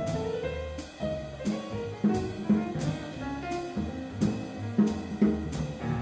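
Jazz piano trio playing: piano, double bass and drum kit, with the drums striking a regular beat.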